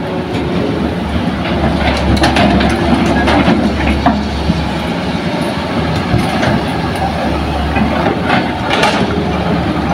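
Hitachi hydraulic excavator's diesel engine running steadily as it loads soil into a dump truck, with scattered knocks and rattles, a cluster of them a couple of seconds in and more near the end.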